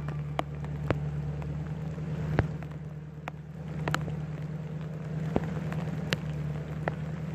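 Rain falling, with irregular sharp taps of drops striking close by every second or so, over a steady low hum.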